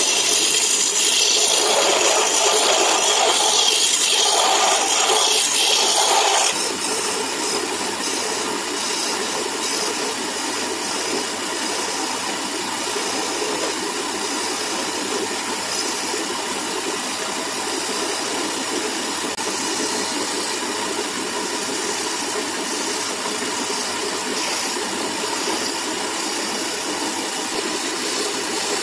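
Wood lathe running while a turning gouge cuts a spinning wooden spindle: a loud hiss of the cut for about the first six seconds, then quieter and steady as finer shaping cuts go on.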